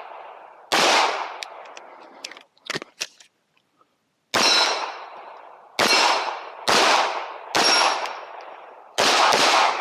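Glock 17 9 mm pistol fired during a practical shooting stage: seven loud shots in uneven groups, each ringing out in a decaying echo. Two fainter sharp cracks come about three seconds in, then a short lull before the rest of the shots.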